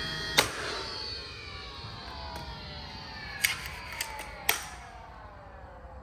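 A power tool's motor winding down after being switched off, its whine falling steadily in pitch over several seconds, with a sharp click as it shuts off and three more sharp clicks or knocks in the middle.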